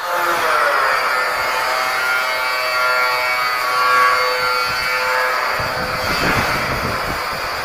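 Electric arc welding on a steel window grill. A steady pitched hum plays first, then about five and a half seconds in the arc strikes and keeps up a dense crackle.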